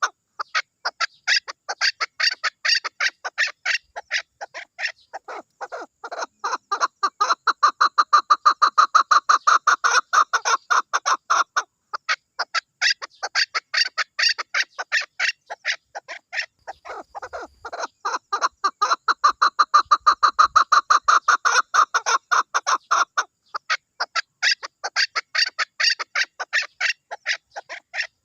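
Chukar partridge calling: a long run of quick, repeated clucking chuck notes that swells to its loudest twice, with a brief pause about twelve seconds in.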